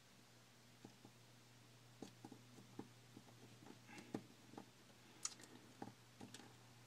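Near silence with a steady low hum and faint, scattered light clicks and taps of small tools and iPhone parts being handled during reassembly.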